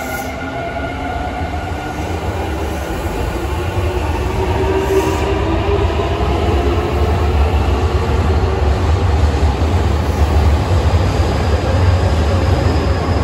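Nankai electric commuter train departing along the platform: its motors whine rising in pitch as it accelerates, over a rumble of wheels on rails that grows louder as the cars pass.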